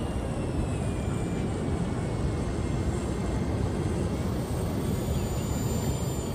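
A steady low rushing of wind and surf, with the faint high whine of the RC A-10 model's jet fans. The whine slowly falls in pitch over the first few seconds.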